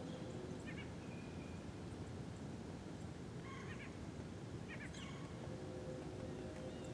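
A few short, faint bird chirps, one about a second in and others around four and five seconds in, over a steady low background rumble.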